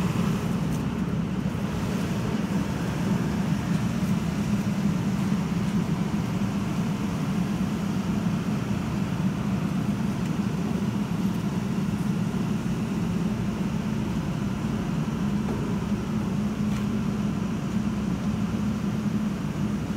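Heavy construction machinery engine running steadily: an unbroken low drone that neither rises nor falls.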